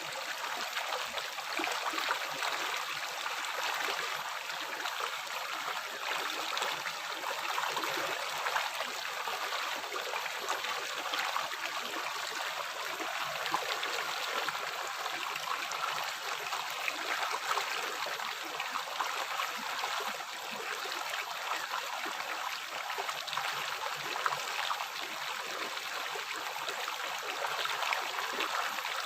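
River water flowing and burbling steadily over rocks: a continuous rushing hiss with many small gurgles and splashes.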